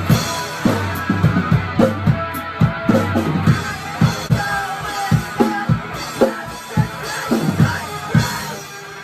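Rock music with a drum kit beat of kick and snare, about two hits a second, over sustained guitar and bass. The drums stop near the end, leaving a quieter tone.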